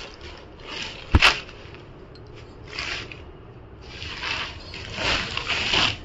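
Rustling and swishing of a lightweight silk saree being unfolded and spread out by hand, in a series of brushes of cloth, with one sharp click about a second in.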